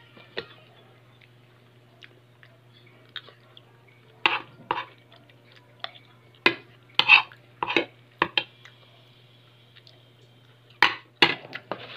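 Metal spoon clinking and scraping against a plate while eating, in short scattered strokes, over a steady low hum.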